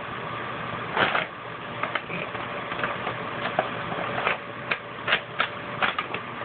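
Paper bag crinkling and rustling irregularly as kittens scramble and wrestle on it, with sharp crackles every so often over a faint steady hum.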